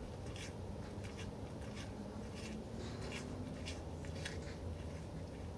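Young mule deer buck chewing close by: a run of irregular crunches, about two a second.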